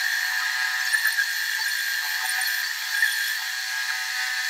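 Bandsaw running with a steady high-pitched whine, stopping abruptly at the end.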